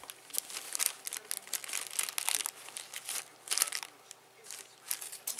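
Grey plastic mailer bag crinkling and rustling in irregular crackles as it is pulled and torn open by hand.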